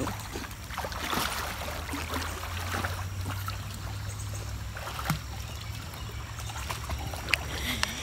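German Shepherd dog-paddling through a stream, water splashing and sloshing around her as she swims.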